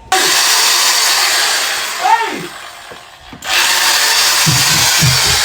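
Handheld electric drill running in two long bursts: the first starts suddenly and dies away over about three seconds, the second starts about three and a half seconds in. A steady beat comes in near the end.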